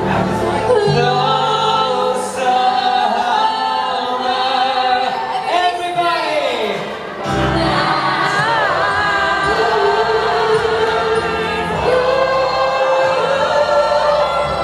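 Singing waiters performing live into handheld microphones, amplified over a musical backing in a busy diner, with several voices together and long held notes; one line slides down in pitch about six seconds in.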